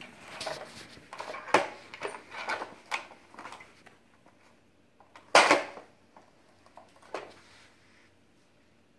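Clattering knocks of a plastic CAT toy dump truck being handled and bumped on the floor, a quick run of them and then a single louder clatter about five seconds in.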